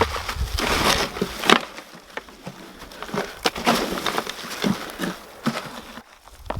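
Dry soil rustling and crunching as hands dig through a potato container, loudest in the first second and a half, then quieter with scattered small knocks and clicks.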